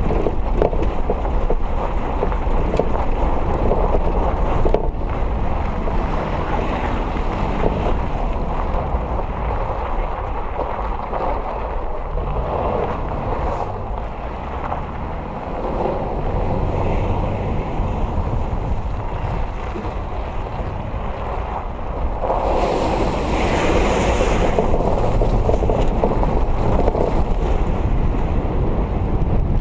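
Toyota Land Cruiser FJ80 driving off-road over dirt and sand, engine and tyre rumble mixed with heavy wind buffeting on the hood-mounted camera's microphone. The wind noise grows louder about two-thirds of the way through.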